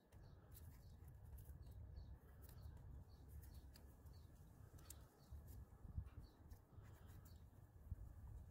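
Near silence: a faint low background rumble, with a faint high chirp repeating about twice a second and a few soft ticks.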